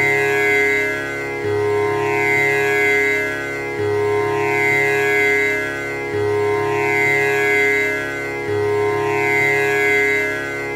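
Tanpura drone: its strings are plucked in a steady cycle that restarts about every two and a half seconds. The notes ring on into one another in a continuous drone, rich in overtones.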